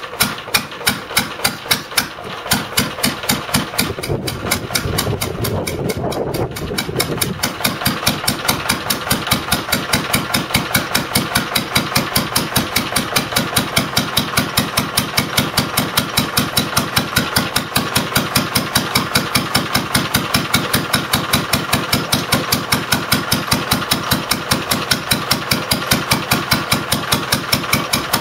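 1931 Conord F2 single-cylinder petrol stationary engine running just after a start, its exhaust beating slow and uneven for the first few seconds. About seven seconds in it picks up speed and settles into a quicker, even beat as it drives a belt-driven DC generator under lamp load.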